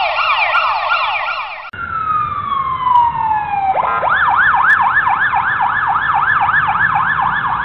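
Electronic siren sound effect: a fast up-and-down yelp at about four sweeps a second, a single long falling tone from about two seconds in, then the fast yelp again from about four seconds in.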